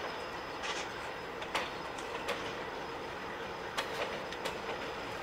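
A freight train's cars rolling along steel rail: a steady rumble with sharp, unevenly spaced clicks from the wheels crossing rail joints.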